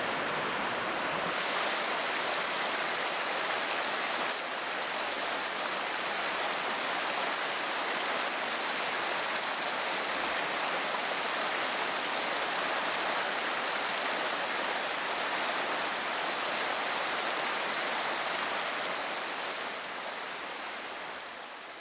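Fast, shallow river rushing over rapids: a steady rush of water that fades near the end.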